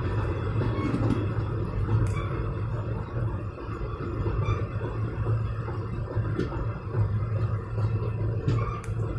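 Railway coach wheels running along the rails at speed, heard close by the wheel under the coach: a steady low rumble with a few short clicks.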